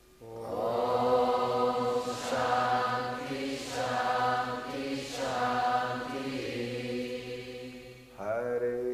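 Sanskrit mantra chanting: long, sustained chanted phrases on a steady pitch, with a short pause for breath just after 8 s before the next phrase begins.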